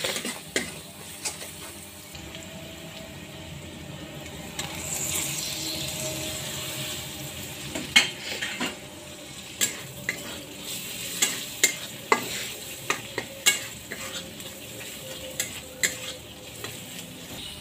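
Onions and oil sizzling in a kadai while a metal slotted spatula stirs, scraping and clinking against the pan. The sizzle swells for a couple of seconds about five seconds in, as diced tomatoes go into the hot oil, and the spatula clinks come often from about eight seconds on.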